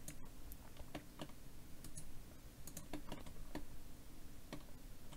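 Irregular clicks of a computer keyboard and mouse, a few keystrokes and clicks a second, as shortcuts are pressed and vertices are moved in 3D modelling software.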